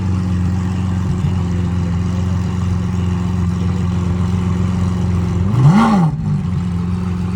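Car engine running steadily, with one quick rev that rises and falls in pitch about six seconds in.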